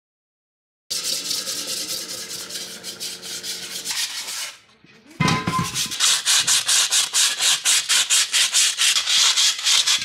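A hand tool scraping rust and grime off the inside of a steel gas cylinder. It starts about a second in, pauses briefly near the middle, then goes on in quick, regular strokes of about four a second.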